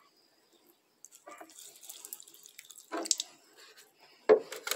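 Water trickling and dripping as potting soil in concrete plant pots is watered, starting about a second in, with a sharp knock near the end.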